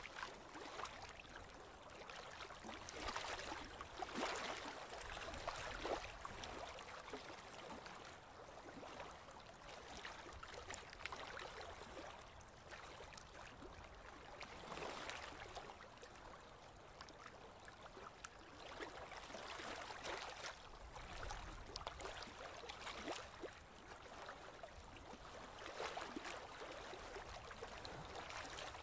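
Water gurgling and lapping along the hull of a slowly moving boat, swelling and easing in irregular surges.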